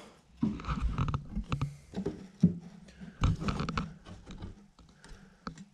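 Irregular knocks, clicks and scuffs from handling loose pine boards laid on top of a wooden pallet cooler frame.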